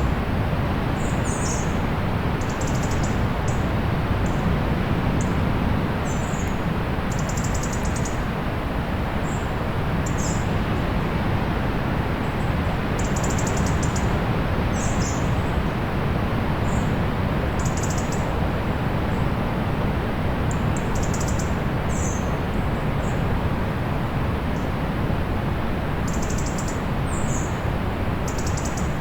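Steady low rush of distant sea surf, with small birds giving short, high chirps every second or two over it.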